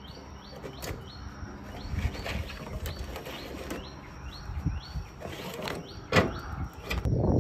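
A riding mower's battery being worked loose and lifted out of its tray: scraping and knocking, with one sharp knock about six seconds in. A bird chirps repeatedly in the background.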